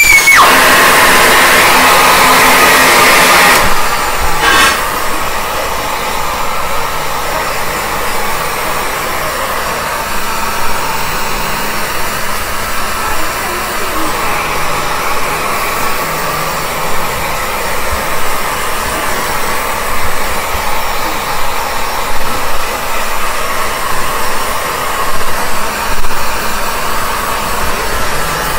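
Handheld hair dryer blowing a steady whoosh with a faint whine in it. It is loudest for the first few seconds, drops noticeably about four seconds in, and then wavers a little as it is moved around the hair.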